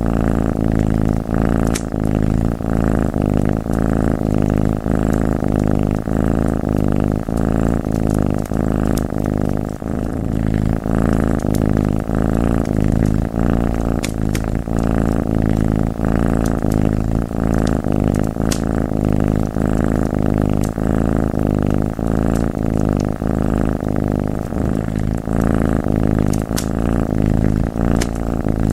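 Domestic cat purring steadily and closely, the purr swelling and easing with each breath, over the sharp crackle of a wood fire that pops every second or so.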